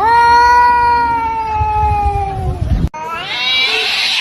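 A cat's long yowl, held for nearly three seconds and slowly falling in pitch, cut off abruptly; then a second, wavering call that rises in pitch.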